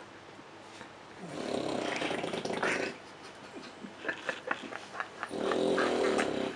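A man snoring: a rasping snore, then a run of small irregular sputtering clicks and puffs, then a long buzzing snore near the end.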